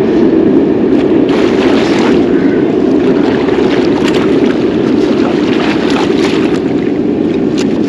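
Loud, steady rushing noise of water and wind, with scattered short splashes from about a second in, as a large wels catfish is brought in at the water's edge.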